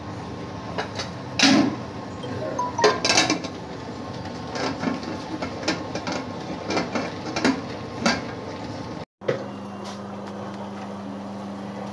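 Metal kitchenware clattering: a metal ladle and lid knocking and clinking against an aluminium pressure cooker in a run of irregular clinks and knocks. After a brief drop-out near the end, a steady low hum is left.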